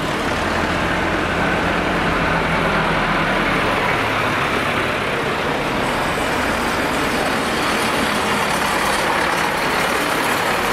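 Tractor engines running as decorated tractors drive past close by one after another, a low engine drone strongest in the first few seconds.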